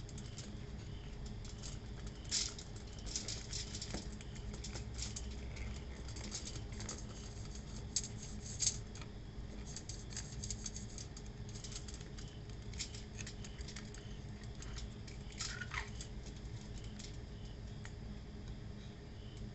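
Scattered light clicks and taps of hands handling and turning an opened metal sardine tin, with two sharper clicks about eight seconds in, over a low steady hum.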